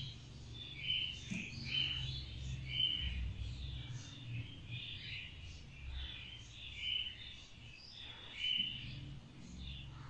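Budgerigar chirping: short, high chirps repeating about once or twice a second, over a faint steady low hum.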